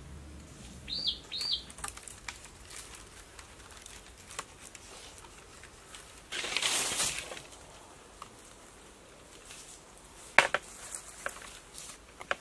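Bamboo poles being handled and set into a frame: a rustling scrape of about a second in the middle and a sharp knock near the end. A small bird chirps twice about a second in.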